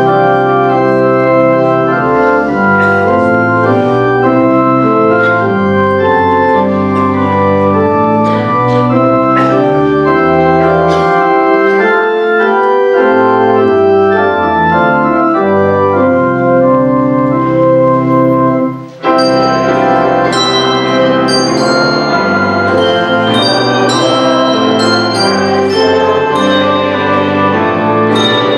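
Organ playing a hymn in sustained, changing chords. About 19 seconds in it breaks off briefly, then resumes with higher, sharper-struck notes added over the chords.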